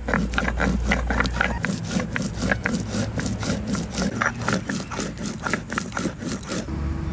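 Stone grinder rolled back and forth on a stone grinding slab (shil-nora), grinding red chillies into a wet paste: stone scraping on stone in a quick, even rhythm of about three strokes a second, stopping near the end.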